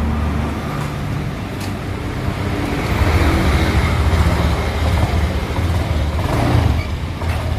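A motor vehicle engine running, swelling louder about three seconds in and easing off near the end.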